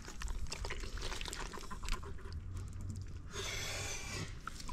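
Hands digging and groping through wet mud and water in a flooded hole, feeling for catfish: small squelches and clicks throughout, with a short rush of splashing about three and a half seconds in.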